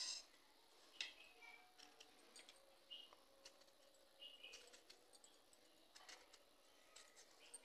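Faint, scattered clicks and light scrapes of a kitchen knife paring the rind off muskmelon slices.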